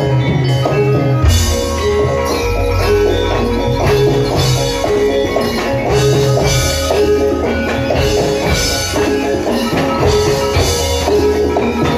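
Javanese gamelan music for a kuda kepang dance: repeated metallophone notes in a regular rhythm over drums.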